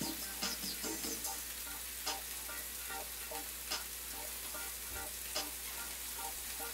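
Food sizzling in a frying pan on an electric stove, a steady hiss with a few sharp clicks of a utensil against the pan, and faint background music.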